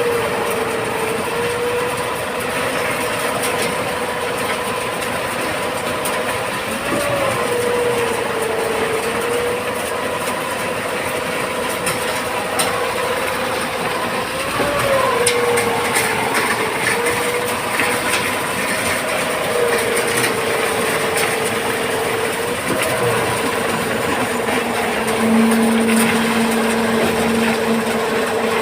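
Construction machinery running steadily during a concrete wall pour: a constant machine hum whose pitch wavers briefly a few times, with scattered clicks and knocks.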